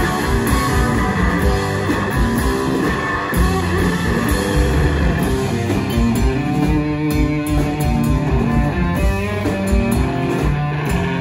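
Live rock band playing loudly: electric guitar over two drum kits, with a steady beat.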